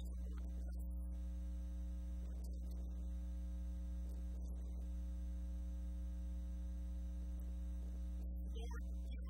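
Steady low electrical mains hum, with a fainter buzz of its overtones.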